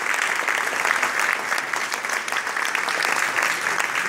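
Concert audience applauding, a dense steady clapping greeting a band member's introduction.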